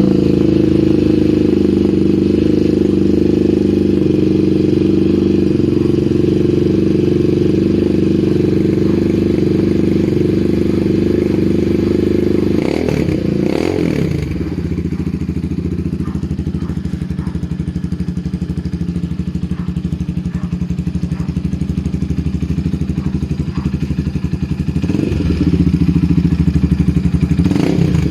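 RC250 motorcycle running through a bullet-type aftermarket exhaust pipe. It runs steadily and is revved briefly about halfway, then settles to a lower idle with a clear exhaust beat. The revs rise again near the end.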